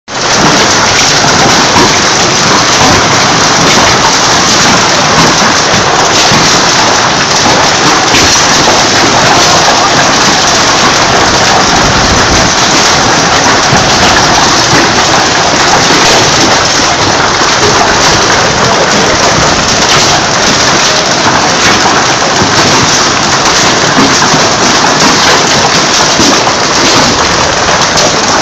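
Heavy hailstorm: hailstones and rain pelting down together, a loud, dense, steady din of impacts.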